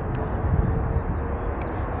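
Jet airliner engine noise: a steady low rumble, with a faint held whine through the first second.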